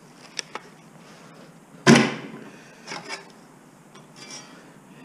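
Knocks and clatter from handling scrap parts: two small clicks, then one loud sharp knock with a brief ring about two seconds in, followed by softer knocks.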